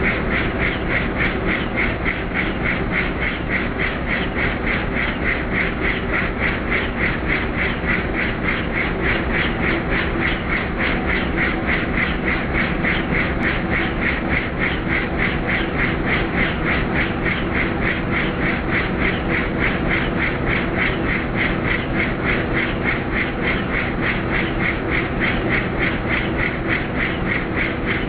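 Helicopter in flight: a steady, rapid rotor chop with a continuous engine drone underneath, unchanging throughout.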